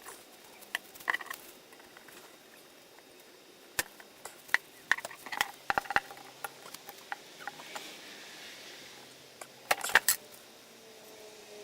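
Scattered sharp metallic clicks and clinks from snap ring pliers and small metal parts being handled while fitting a snap ring onto a turbo actuator shaft, with a cluster of louder clicks about ten seconds in.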